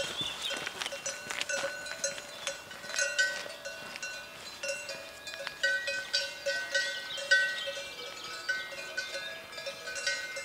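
Bells on grazing cows, clanking and ringing irregularly in many quick strikes.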